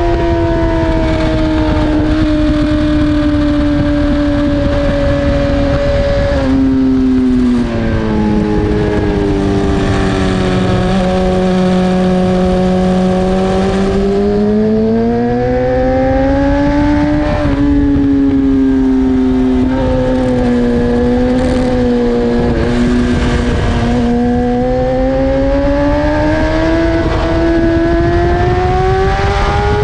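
BMW S1000RR inline-four engine at racing revs. Its note drops in quick steps about six and eight seconds in as it downshifts, stays low through a slow stretch, then rises under acceleration. It dips again and climbs steadily over the last few seconds.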